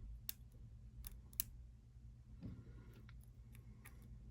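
Faint, irregular clicking of a single-pin lock pick and tension tool working the pin stack inside a Master Lock padlock, several sharp ticks a second or so apart.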